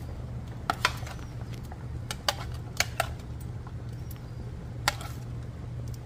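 About seven sharp clicks and taps, scattered irregularly, over a steady low hum.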